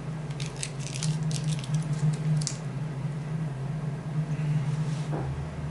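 Small plastic parts being handled: a quick run of light clicks and rustles in the first couple of seconds, then quieter, over a steady low hum.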